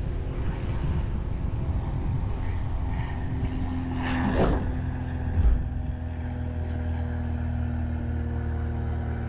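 Car engine and road noise as the car slows to a stop, with a short scraping rush about four seconds in and a single thump about a second later; the engine then idles steadily.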